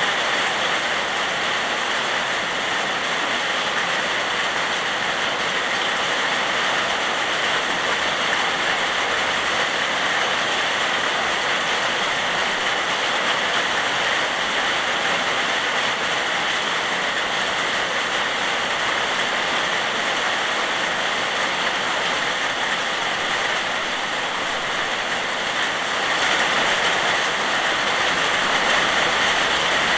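Steady rain falling, an even hiss, a little louder from about 26 seconds in.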